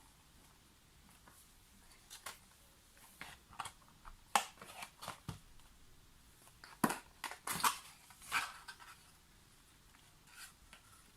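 Scattered clicks and rustles of a small package being opened and its contents handled.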